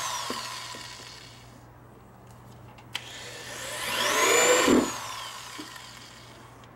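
Electric drill boring through a plastic fender. The motor winds down just after the start, then runs again from about three seconds in, its whine rising and then falling as it coasts to a stop.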